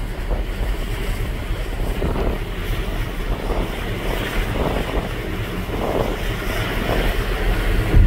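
Wind buffeting the microphone on the open deck of a moving ferry, over a steady rush of water from the ship's wake.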